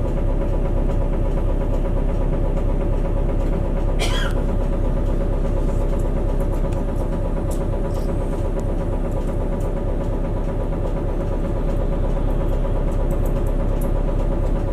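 City bus engine idling steadily while the bus stands at a red light, heard from inside the passenger cabin. There is a short, sharp sound about four seconds in.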